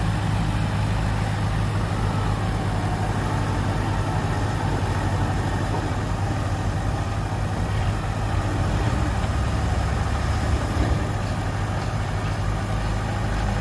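Heavy diesel engine of a dump truck or bulldozer running steadily at low revs, with no change in pitch.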